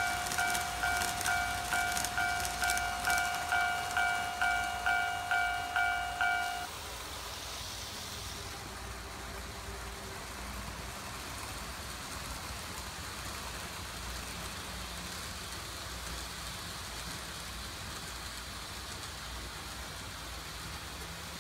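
Model railway level-crossing warning bell dinging about twice a second, with light rapid clicking over the first few seconds; it cuts off suddenly about six and a half seconds in as the crossing is cleared. After that only a faint steady hum of the N gauge trains running remains.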